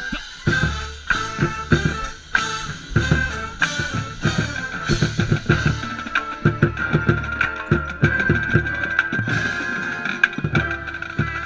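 Marching band playing, with the marching bass drum right under the microphone struck in quick rhythmic patterns; its low thumps are the loudest sound, along with snare hits, over wind instruments holding a long high note.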